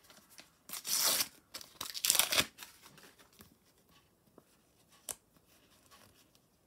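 Panini sticker packet being torn open: two quick rips of the wrapper about a second apart, followed by faint crinkling as the stickers are handled, and a single short click about five seconds in.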